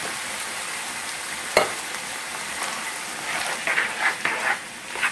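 Ground beef, tomato sauce and diced tomatoes sizzling in a skillet, with one sharp knock about a second and a half in. Near the end a spoon stirs and scrapes through the sauce in several short strokes.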